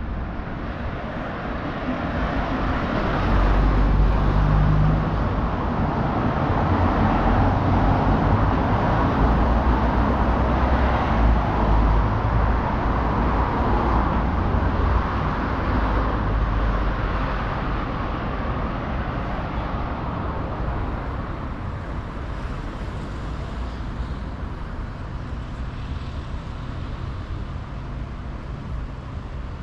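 Road traffic: a motor vehicle's engine and tyre noise swells a few seconds in, stays loud for about ten seconds, then slowly fades.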